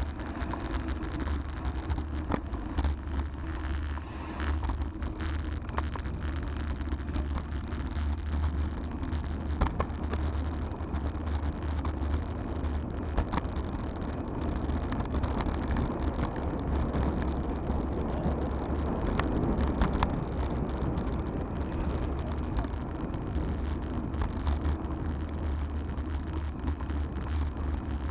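Wind rumbling on an action camera's microphone during a road-bike descent, with the hiss of tyres on asphalt and scattered short knocks as the bike and camera go over bumps in the road.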